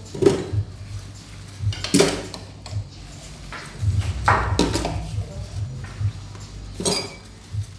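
Dishes and utensils clattering in a kitchen sink as they are washed by hand, with several sharp clinks a second or two apart.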